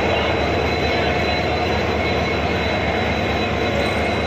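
WDP4D diesel-electric locomotive running with a steady, even engine drone close by.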